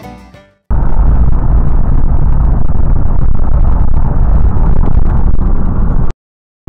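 Loud, steady rumble of a vehicle on the move, starting abruptly about half a second in and cutting off suddenly shortly before the end.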